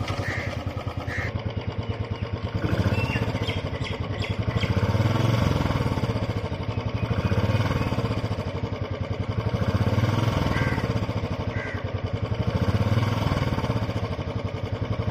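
Royal Enfield Bullet 350's single-cylinder UCE engine running just after a kick start, its exhaust thumping in a steady beat. The beat swells and eases gently every two to three seconds.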